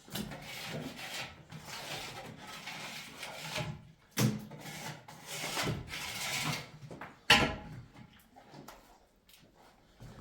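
Rubbing and scraping, with a sharp knock about four seconds in and a louder one about seven seconds in, then quieter handling.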